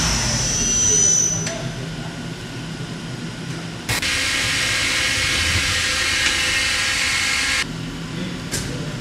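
CNC machine-tool noise: a CNC lathe running with a high whine that fades away over the first second and a half. Then a steady hiss from a vertical machining center starts sharply about four seconds in and stops abruptly a little before the end. After it the lathe's low hum returns with a single sharp click.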